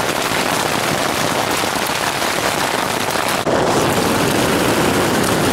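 Hail and heavy rain pelting a tent's fabric, a dense, steady pattering of countless small impacts that changes and grows a little louder about three and a half seconds in.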